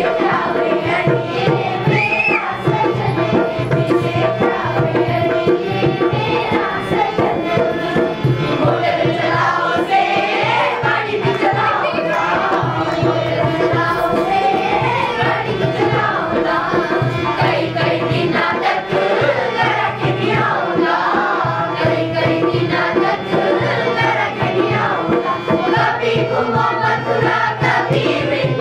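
Indian music with hand drums keeping a steady rhythm under a melody.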